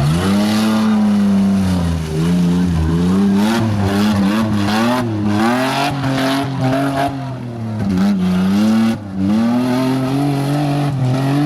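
Off-road race vehicle's engine revving hard, its pitch climbing and dropping again and again, with a brief dip about nine seconds in.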